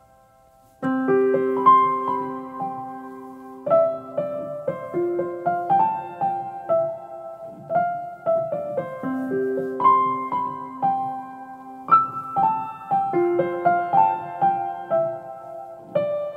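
Background piano music: a melody of single notes over held lower notes, starting about a second in after a brief near silence.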